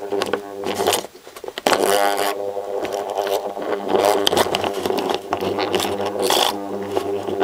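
The small DC electric motor of a disassembled Commodore fuel pump running while held together by hand, a buzzing drone with a rattle. It cuts out for about half a second about a second in, then runs again.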